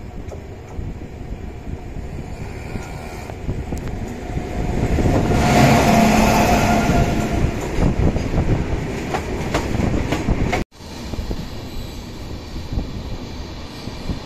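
Passenger train running on the rails: a steady rumble of wheels and carriages that swells louder for several seconds in the middle, cuts out for an instant about three-quarters of the way through, then goes on at its earlier level.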